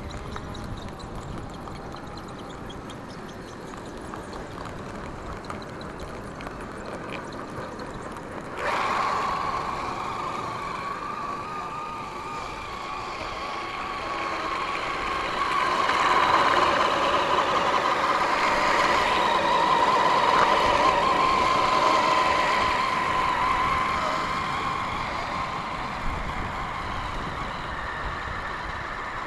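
Radio-controlled scale crawler's electric motor and geared drivetrain whining at a steady pitch as it drives. The whine starts suddenly about nine seconds in after a stretch of low hiss, grows louder in the middle and eases off near the end.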